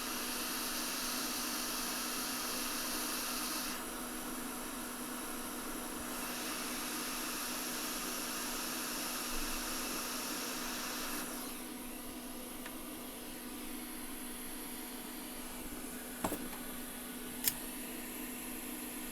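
Hot air rework station blowing while a capacitor is soldered onto a phone logic board: a steady rush of air over a low hum, the hiss stepping down and back up a few times as the nozzle moves. Two sharp clicks near the end.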